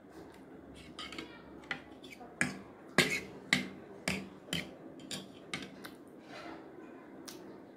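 Close-up eating sounds: about a dozen sharp clicks and smacks, loudest about three seconds in. They come from chewing noodles wrapped in roti and from a fork picking at noodles on a paper plate.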